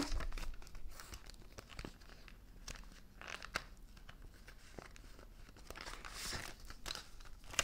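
Faint rustling and crinkling of paper banknotes and an envelope handled by hand as the notes are counted and slid in, with a few small clicks.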